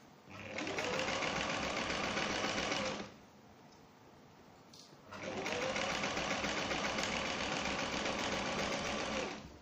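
Domestic sewing machine stitching a side seam in two runs, of about two and a half and four seconds, each speeding up at the start and then running steadily, with a pause between to reposition the fabric.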